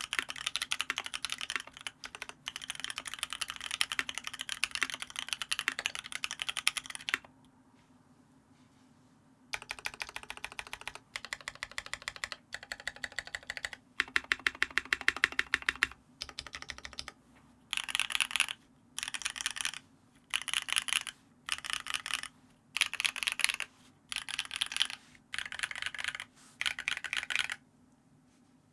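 Typing on a Lyn Special Whale custom mechanical keyboard with a brass plate, lubed Paco switches (cream housings with Halo stems) and PBT keycaps. The typing is fast and continuous, stops for about two seconds some seven seconds in, and resumes. It ends in a string of short bursts of rapid keystrokes separated by brief gaps, stopping just before the end.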